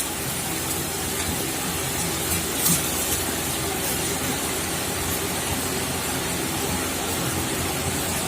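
Steady hiss of a covered pan of chicken cooking in a little water on the stove, with a few faint clicks about two to three seconds in.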